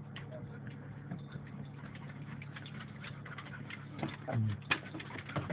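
Light, irregular ticking of a dog's claws and footsteps on a wooden deck over a steady low hum, with a brief low voice sound about four seconds in.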